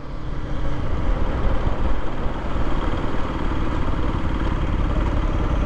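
Aprilia RS 125's single-cylinder four-stroke engine running as the bike rides along and slows down in city traffic, under a steady rumble of wind and road noise.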